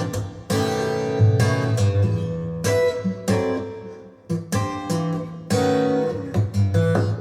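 Recorded music played through Audio Note AN-J/LX loudspeakers in a small room: acoustic guitar chords struck one after another, each ringing out and fading before the next.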